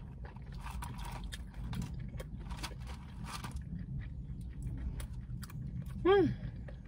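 Close mouth sounds of someone chewing French fries, with small wet smacks and clicks over a steady low hum. A short hummed "mm" about six seconds in.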